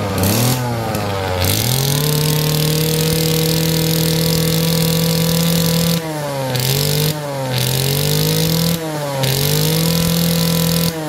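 Kawasaki TD18 two-stroke brush-cutter engine running and revved by hand at the carburettor. It climbs to a high, steady rev and holds for about four seconds. It then drops and is blipped back up three times, falling off again near the end.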